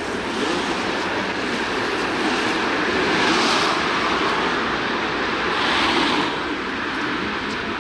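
Street traffic noise: a steady rush of road noise that swells twice, about three and a half and six seconds in, as vehicles go by.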